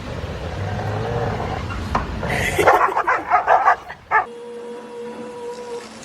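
A dog barking rapidly, a quick run of about six sharp barks in under two seconds, midway through.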